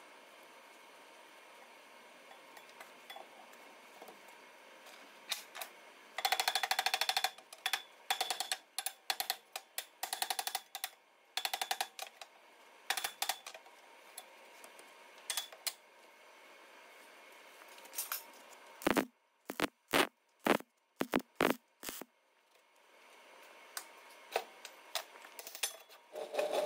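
Electrical tape being pulled off the roll in short crackling strips and wound around a worn steel shaft to pack it out so the bearing sits without wobbling, starting about six seconds in. A little past the middle come about six sharp clicks, and more crackle and clatter near the end.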